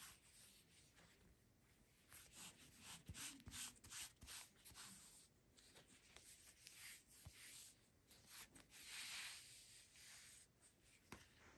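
Faint rustling and light clicks of hands handling a leather handbag strap, with a softer rubbing swish a little before nine seconds in.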